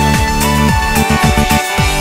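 Electronic background music with a steady beat and a held synth melody, with a quick run of rapid drum strokes about a second in.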